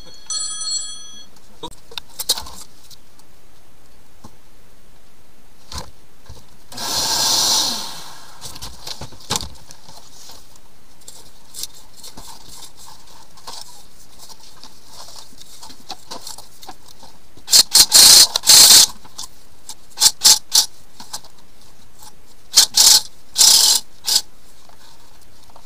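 Metal rattling and scraping from handling drain-cleaning gear: a flexshaft cable with a wire-brush head being worked in around the sink drain pipes. There is one longer scrape about seven seconds in, then several short, loud clattering bursts in the second half.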